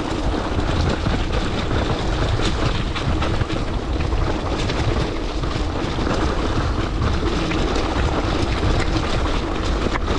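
Trail bike clattering and rattling over a rough dirt trail, with wind rumbling on the camera's microphone.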